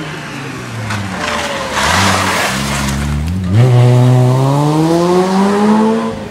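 Rally car engine dropping in pitch as the car slows into a tight bend, with a rushing burst of tyre noise as it slides about two seconds in. Then the engine pulls hard, its pitch rising steadily as the car accelerates away.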